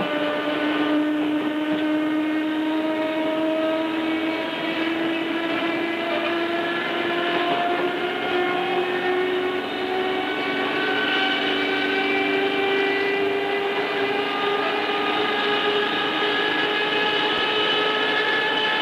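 Tobu 5050 series electric train's nose-suspended traction motors and gears whining, the whine rising steadily in pitch as the train gathers speed under resistance control.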